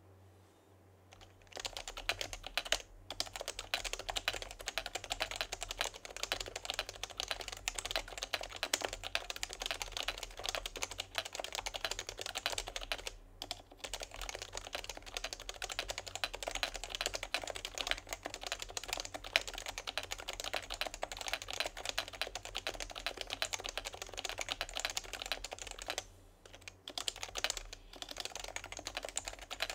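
Topre keyboard being typed on quickly and continuously: a Sho Snipe built on HHKB Professional Classic 2 Topre switches, with an aluminium plate and stock HHKB keycaps. The typing starts about a second and a half in and breaks off briefly three times.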